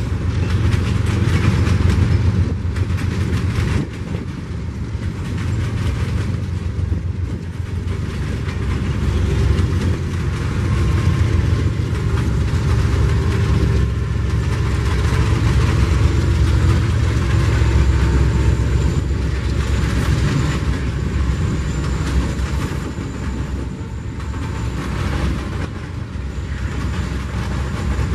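Freight train cars rolling past at speed: a steady low rumble of steel wheels on rail with a constant rapid clatter of wheels over rail joints, a little louder around the middle.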